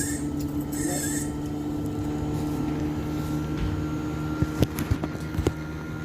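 Panasonic air conditioner running with a steady hum while it is being charged with refrigerant. There are two short hisses near the start and a few sharp clicks about five seconds in.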